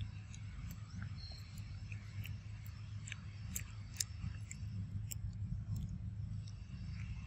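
Macaques cracking peanut shells in their teeth and chewing: irregular sharp, crunchy clicks, over a steady low rumble.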